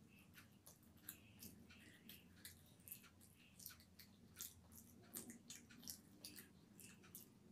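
Close-miked chewing of a mouthful of rice and fried fish: faint wet mouth clicks and smacks, a few a second and irregular, over a low steady hum.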